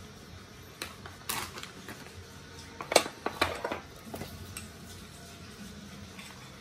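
Metal kitchen tongs and utensils clinking against the hot pot and dishes: a handful of sharp, scattered clinks, the loudest about three seconds in.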